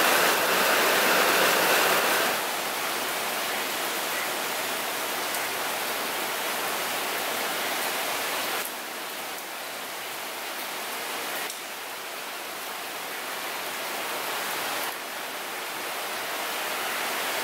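Heavy rain falling in a steady hiss, at first pattering on pond water. About two seconds in the sound drops suddenly to a quieter, thinner hiss, and it shifts abruptly in level a few more times.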